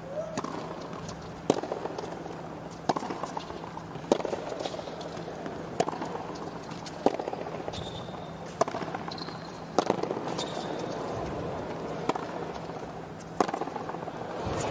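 Tennis rally: a serve, then the ball is struck back and forth with rackets, one sharp hit about every second and a half.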